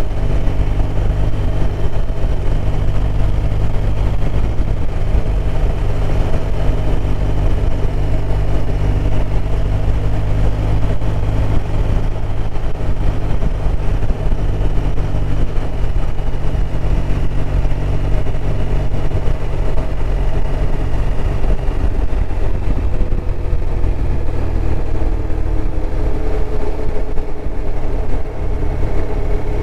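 BMW R1200RT's flat-twin boxer engine running under way at a steady speed, its note easing down slightly about three-quarters of the way through.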